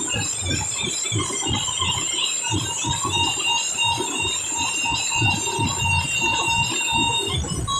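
Loud band music from an outdoor sound rig: a heavy drumbeat with high held melody notes above it, the highest line dropping out near the end.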